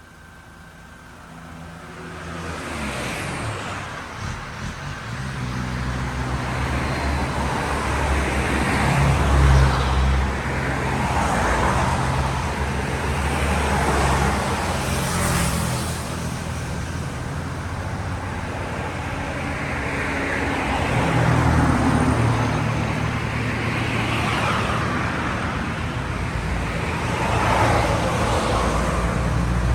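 Motor vehicle engine running steadily amid road traffic noise, growing louder over the first few seconds.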